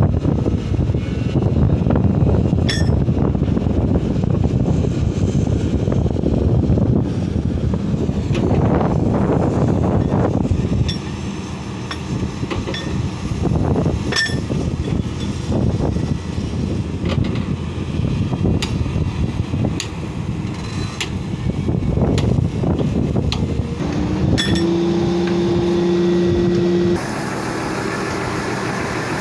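Heavy diesel machinery running at a road construction site, with wind buffeting the microphone through roughly the first ten seconds. Scattered clicks and knocks are heard, and a steady two-note, horn-like tone sounds for a couple of seconds near the end.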